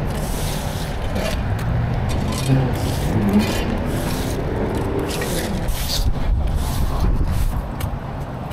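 Push broom scraping across charred bus debris on freeway asphalt in repeated, irregular strokes, over a steady low engine rumble.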